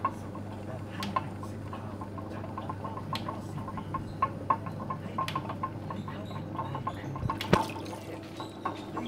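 Wet hands shaping a terracotta clay cup on a spinning potter's wheel: small wet clicks and drips over a steady low hum, with one sharper knock about seven and a half seconds in.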